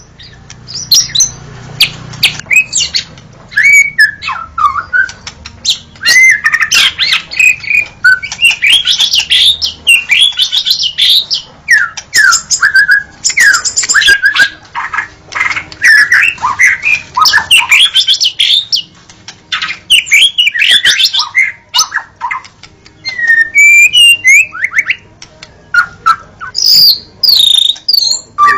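White-rumped shama (murai batu) in full song: a loud, rapid, varied run of whistled phrases with quick rising and falling glides, barely pausing.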